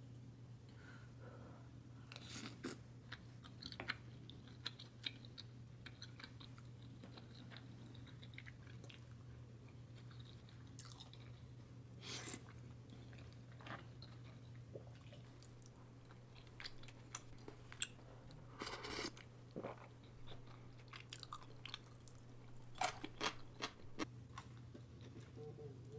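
Close, quiet eating sounds: a person chewing mouthfuls of dumpling soup, with small scattered clicks and taps of a spoon and chopsticks against a ceramic bowl, over a low steady hum.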